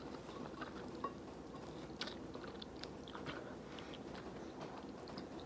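Faint chewing and mouth sounds of a person eating creamy linguine, with a few soft clicks, the sharpest about two seconds in.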